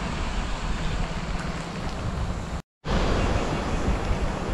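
Wind buffeting the microphone of a camera on a moving road bike: a steady rushing noise with a low rumble underneath. It drops out for a moment about two and a half seconds in.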